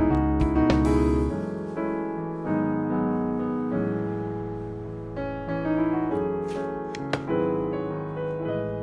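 Background piano music: slow notes and chords, each ringing and fading.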